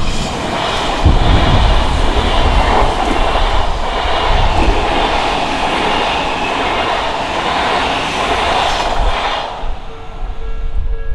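An Odakyu electric train passes at speed close by, a loud, steady rush of running noise that dies away about nine seconds in. As it fades, the level crossing's pulsing warning bell is heard again.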